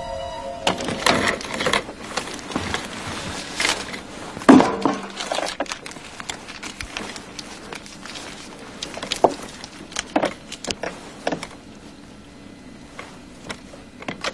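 Small objects handled by hand: scattered light clicks and rattles, with a louder knock about four and a half seconds in.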